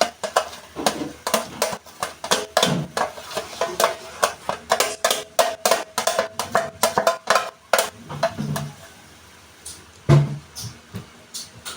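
A spoon scooping salad out of a bowl and knocking against its rim, a quick run of clicks and knocks with a faint ring, thinning out about eight seconds in.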